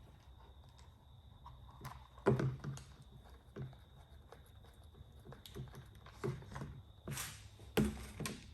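Handling noise of a camera in its leather case: scattered clicks and knocks, the loudest about two seconds in, and two short brushing rustles near the end as the case is opened and the camera taken out.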